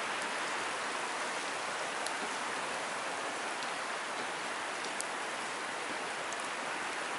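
A steady, even water hiss with a few faint, scattered ticks.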